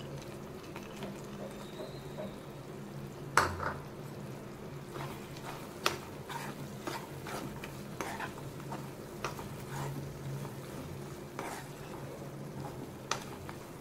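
Steel spoon stirring thick beetroot halwa in a nonstick pan, with sharp clicks of the spoon against the pan, the loudest about three and a half seconds in, over a low sizzle of ghee frying. The ghee is separating from the mixture, the sign that the halwa is nearly done.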